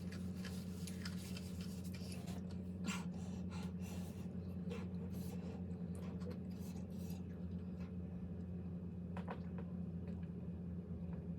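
Quiet eating at a table: scattered soft clicks and short scrapes of utensils and dishes, with chewing, over a steady low hum. The clicks are busiest in the first half and thin out later.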